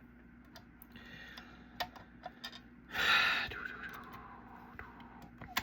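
Small scattered clicks and taps of plastic case parts and tiny screws being handled and fitted. A short breathy exhale or sigh about three seconds in is the loudest sound.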